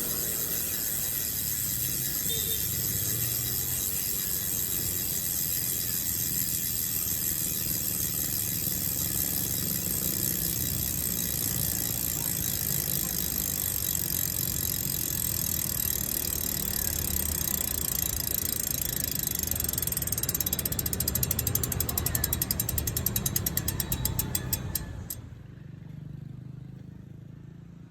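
Freehub of an Elite Wheels SLT E40 ceramic-bearing rear wheel buzzing as the spun wheel freewheels. The fast ratcheting clicks slow as the wheel coasts down until they become separate clicks, then stop suddenly near the end.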